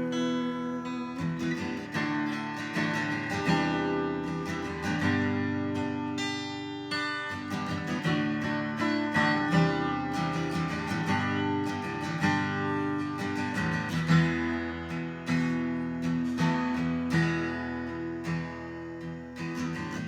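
Acoustic guitar playing an instrumental passage of strummed and picked chords.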